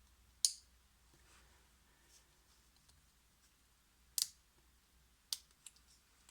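A few scattered sharp clicks of small tools and smartphone parts being handled during disassembly, with quiet room tone between them.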